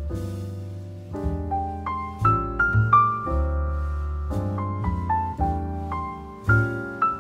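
Background piano music: a slow melody of single notes over low held notes.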